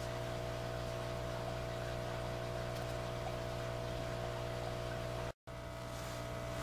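Steady hum made of several constant tones over a soft hiss, like an electrical or machine drone. About five seconds in it drops out completely for an instant where the recording cuts, then carries on unchanged.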